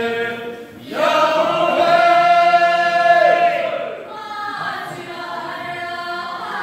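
Voices chanting in chorus, long held sung notes in three phrases, the middle one the loudest.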